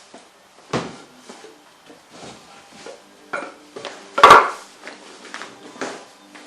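Hard objects being picked up and set down on a workbench as it is cleared: scattered knocks and clatters, the loudest a little over four seconds in.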